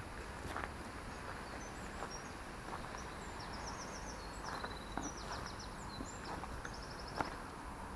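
A small songbird singing high, quick, trilled phrases through the middle, over a steady hum of outdoor background noise, with a few faint clicks.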